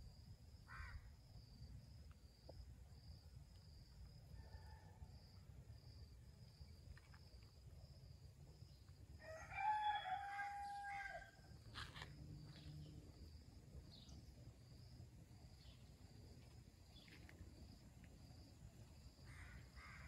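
A rooster crows once, a call of about two seconds near the middle, over a steady high insect trill.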